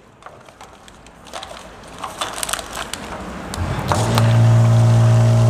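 Plastic pouch rustling and clicking as it is handled on the nozzle of a bottle-shape pouch filling machine. About four seconds in, the machine starts and hums steadily as it fills the pouch.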